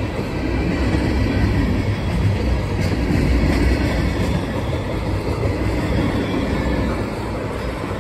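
Freight train tank cars rolling past: a steady low rumble of steel wheels on the rails.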